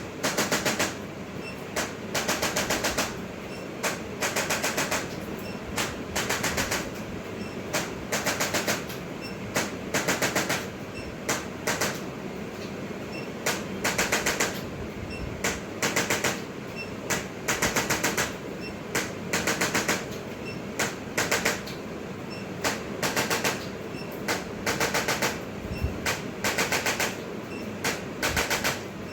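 Repeated short bursts of rapid mechanical rattling, each under a second long and coming about every second, over a steady hum.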